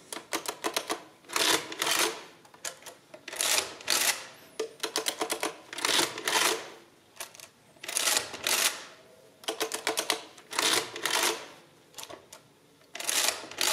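Victor Series 6 and Series 7 mechanical adding-listing machines being worked: number keys click down, and the side crank handle is pulled to add and print each entry. Each pull sets off a short burst of rapid mechanical clicks, about six in all, roughly every two seconds, with lighter single key clicks between them.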